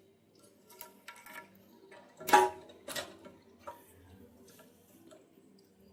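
Scattered clicks and light knocks of plumbing fittings being handled as a braided flexible hose is threaded by hand onto a toilet fill valve's plastic inlet thread. The loudest knock comes about two seconds in, with another just under a second later.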